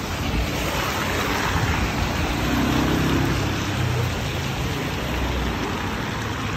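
Traffic on a rain-soaked street: a steady hiss of rain and wet tyres, with a motor scooter's engine passing close, loudest about halfway through.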